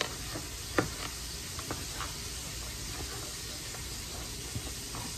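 Chef's knife chopping cooked bacon on a cutting board: a few sharp taps, the loudest a little under a second in, over a steady sizzle from a pan of Brussels sprouts frying on the stove.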